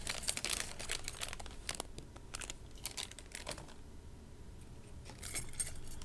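Jewelry packaging being opened by hand: crinkling and rustling with light clicks of small metal pieces, busy at first and thinning out after about two seconds, with a short rustle again about five seconds in.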